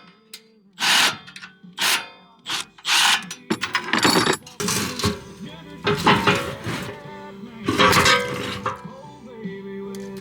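Background music with held tones, under a run of sharp metallic clanks and knocks from tools and exhaust parts being handled.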